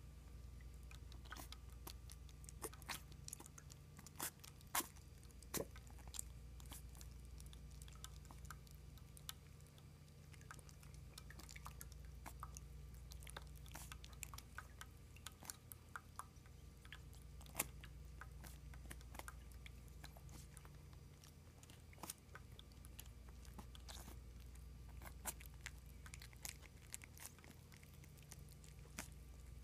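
Miniature schnauzer puppies lapping and licking water from a stainless steel bowl: irregular small wet clicks, a few of them louder.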